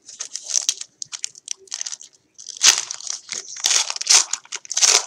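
Crinkling and crackling of trading-card pack wrappers and plastic card sleeves being handled, in irregular bursts that grow louder in the second half.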